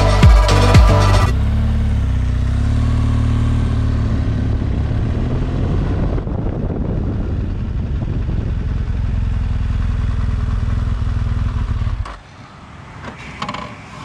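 BMW R1200GS Adventure's flat-twin boxer engine running steadily, after a piece of music with a beat ends about a second in. The engine sound cuts off abruptly about twelve seconds in, leaving a much quieter background.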